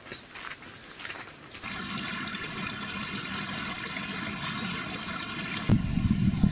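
Small forest stream trickling and splashing over mossy rocks, a steady rush. Near the end a louder, deeper rushing comes in.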